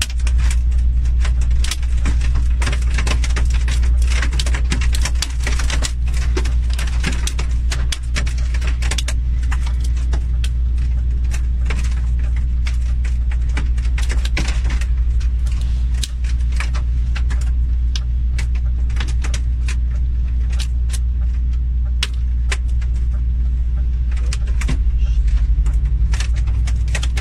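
Hailstones striking a moving vehicle's windshield and body as many sharp, irregular clicks, heard from inside the cab over the steady low drone of the vehicle driving. The clicks come thickest in the first half and grow sparser later.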